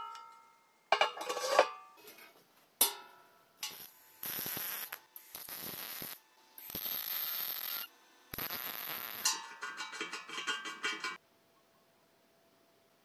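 Sheet-steel pieces clanking and ringing as they are set against each other, then an electric arc welder laying short bursts of weld, each about a second of steady crackling hiss. Near the end comes a quick run of ringing metallic taps and clinks, then it falls quiet.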